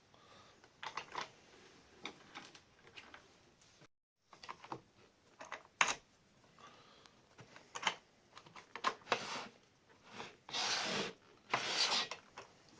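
Aluminium extrusion fence parts on a homemade table saw being handled and adjusted: scattered clicks and knocks, then two short sliding scrapes near the end.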